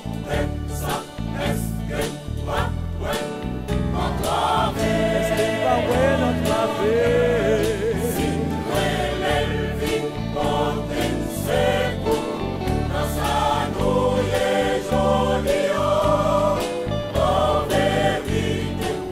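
Church choir singing a Haitian Creole gospel song, backed by a band with a steady drum beat and bass line.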